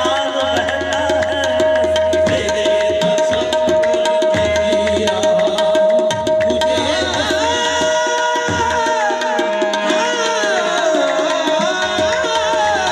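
Qawwali music: harmoniums holding a steady drone note under a moving melody, with tabla beating throughout and sung vocal lines rising and falling.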